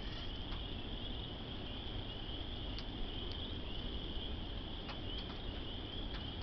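Crickets chirping in a steady, continuous high chorus, over a low rumble of wind on the microphone, with a few faint ticks scattered through.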